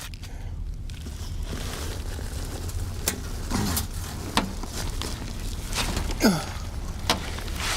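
Rustling and scraping with scattered sharp knocks and clicks as a loose return duct is handled to reconnect it, over a steady low hum.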